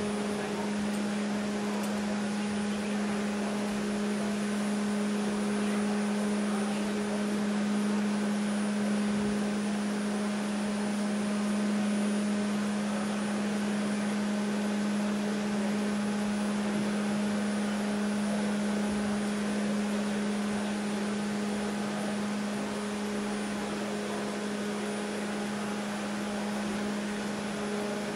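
Steady machine hum with a strong low drone and an even hiss, unchanging throughout.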